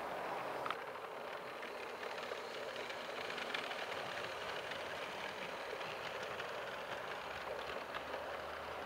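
Model railway train running along the track: a steady rolling rattle of small metal wheels on the rails, with scattered faint ticks and one sharper click just under a second in.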